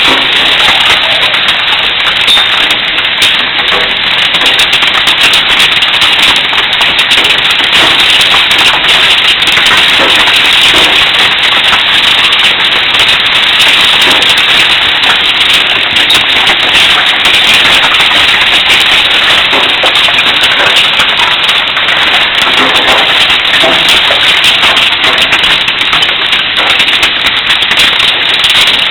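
Hailstorm: hailstones striking hard surfaces in a loud, steady, dense clatter of many small impacts.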